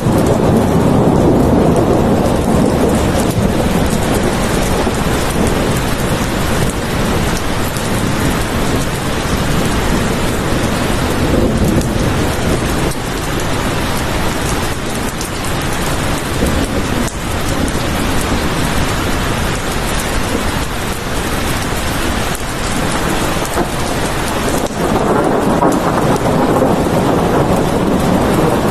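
Heavy rain falling steadily, with low rolling rumbles of thunder swelling near the start and again near the end.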